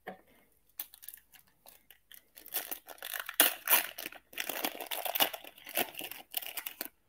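A foil trading-card pack being torn open by hand, the wrapper crinkling and crackling. It starts faint and gets louder after a couple of seconds as the pack is ripped and peeled apart.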